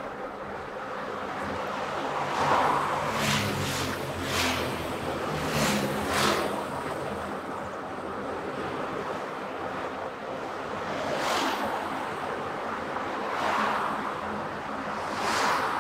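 Road and wind noise from a car driving along, with a series of brief whooshes, several close together a few seconds in and a few more near the end.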